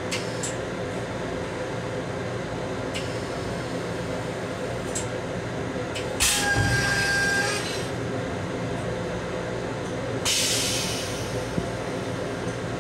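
Steady hum and rumble of an M7 electric railcar, heard inside its small restroom. Two short loud hisses of air break in, one about six seconds in carrying a faint whistle-like tone, the other about ten seconds in.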